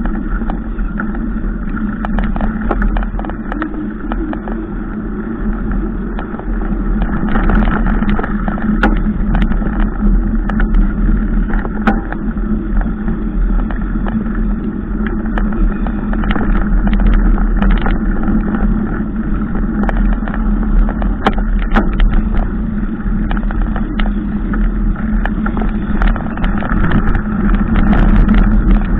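A motorcycle engine running steadily at low road speed, a little louder from about seven seconds in, with many sharp clicks and knocks of rattling over a rough dirt track.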